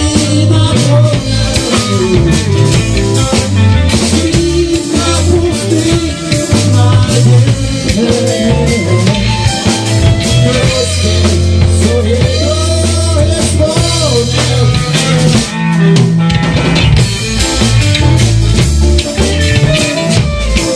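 Rock band music with drum kit, guitar and a steady beat.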